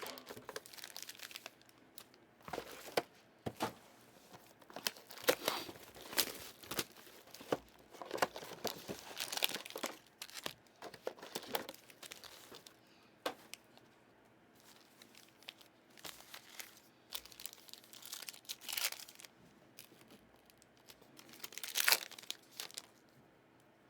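Football trading-card pack wrappers being torn open and crinkled, an irregular run of crackling rustles with a quieter stretch in the middle and a loud crinkle near the end.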